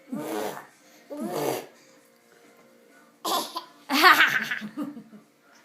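A baby giggling in four short bursts, the last about four seconds in being the longest and loudest.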